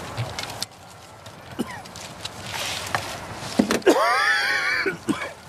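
Knocks, clicks and rustling from hands working on a rack of firework wiring. A brief wavering pitched sound, the loudest thing here, comes about four seconds in.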